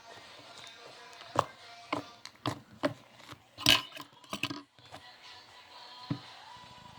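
Homemade slime squeezed and kneaded by hand, giving a run of sharp clicks and pops over about three seconds, the loudest near the middle.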